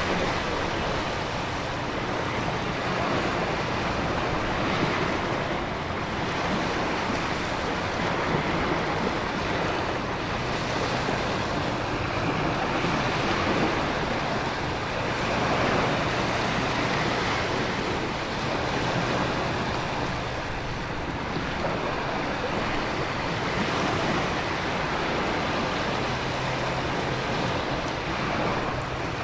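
Storm ambience of heavy rain and wind mixed with ocean waves surging against a coast: a continuous dense rushing that swells and eases gently every few seconds, with no sharp claps.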